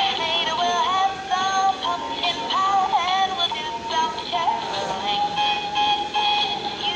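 Battery-powered animated plush Christmas tree toy singing a Christmas song through its small built-in speaker: a high-pitched electronic singing voice over backing music.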